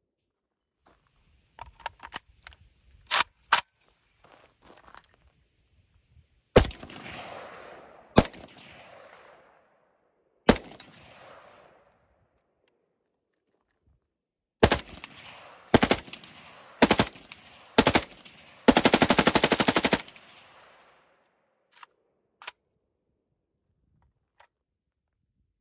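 AK-pattern select-fire rifle shooting. A few sharp clicks of the rifle being handled are followed by single shots and short bursts a second or two apart, then one sustained full-auto burst of about a second and a half. Each report rings on in a long echo.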